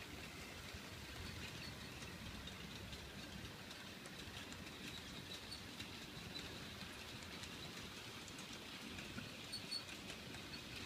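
Long train of 00-gauge model freight wagons rolling on model track: a faint steady rumble with many small clicks and high ticks from the wheels running over the rails.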